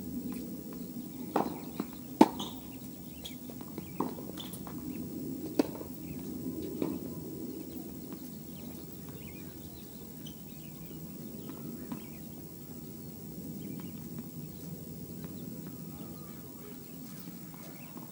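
Tennis balls struck by rackets and bouncing on the court during a rally: about five sharp pops in the first seven seconds, the loudest about two seconds in, then only a steady low background hum.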